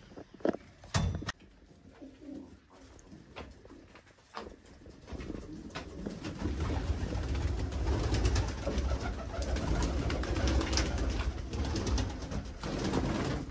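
Domestic pigeons cooing, the low cooing growing louder and busier about five seconds in. A few sharp knocks come in the first second and a half.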